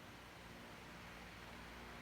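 Near silence: room tone with faint hiss and a faint low steady hum.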